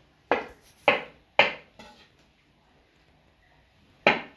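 Chef's knife cutting through buffalo mozzarella and knocking on a wooden cutting board: three sharp knocks about half a second apart, then one more near the end.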